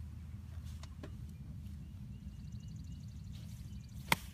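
Golf club striking the ball on a short pitch shot: one sharp click about four seconds in, over a steady low rumble.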